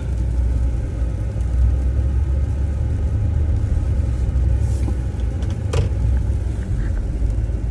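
Chevrolet Tahoe's engine running with a steady low rumble, heard from inside the cabin as the SUV tries to pull out of deep snow in auto four-wheel drive. One short knock sounds about six seconds in.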